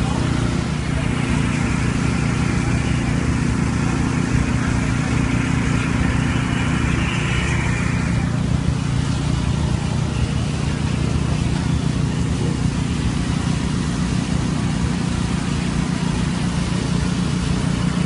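Concrete pump's diesel engine running steadily as concrete is pumped through the hose into a foundation, with construction-site noise.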